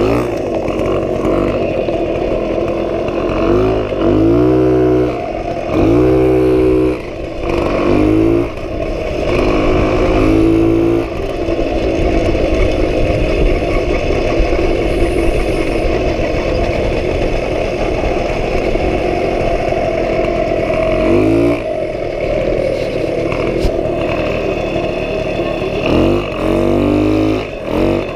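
1977 Puch Pinto moped's 49 cc two-stroke engine running under way, revving up in short rises several times in the first ten seconds and again near the end, running steadily in between.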